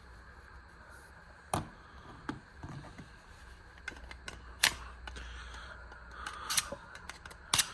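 Irregular sharp clicks and taps, about six of them, from a folding pocket knife being handled between sets of sharpening strokes, over a faint steady low hum.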